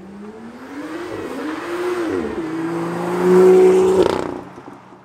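Sports car accelerating hard past, engine pitch climbing, then dropping sharply with an upshift about two seconds in. It pulls steadily and gets loudest before falling away about four seconds in.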